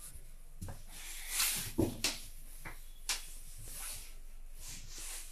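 A few sharp knocks and clicks in a small metal-lined train washroom, the loudest about two seconds in, with a brief rustle just before it.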